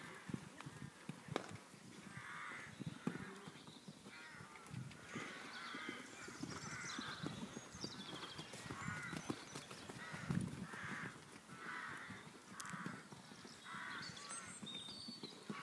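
Crows cawing, a long series of short harsh calls about one a second, with soft hoofbeats of a horse cantering on sand underneath.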